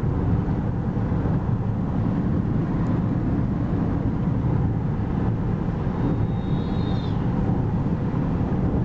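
Car driving at speed, heard from inside the cabin: a steady low rumble of engine and road noise. A brief faint high whistle sounds about six seconds in.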